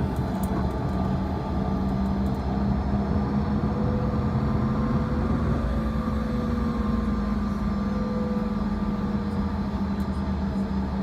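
Cabin noise of a Bombardier CRJ-200's rear-mounted turbofan engines running at ground idle, a steady drone whose pitch rises slightly in the middle and settles again.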